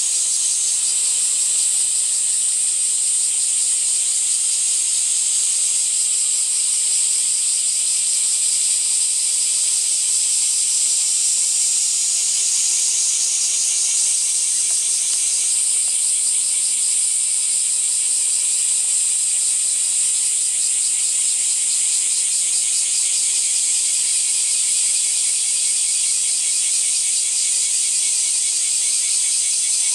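A dense chorus of summer insects: a steady, high-pitched shrilling with a fast pulsing texture.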